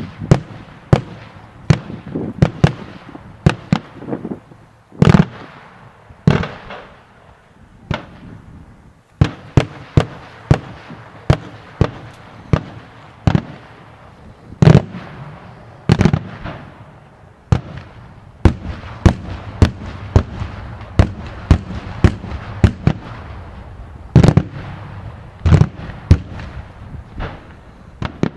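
Daytime fireworks display: aerial shells bursting in a long, irregular string of sharp bangs, often one or two a second, each with a short echoing tail. After a brief lull about eight seconds in, the bangs come thicker over the second half, over a steady crackling rumble.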